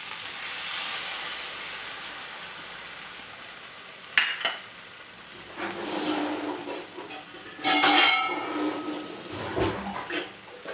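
Cornflour-and-maida slurry sizzling as it is poured into a hot pan of fried prawns in sauce, with a sharp metal clink of a utensil against the pan about four seconds in. Sizzling and kitchen-utensil clatter continue through the rest.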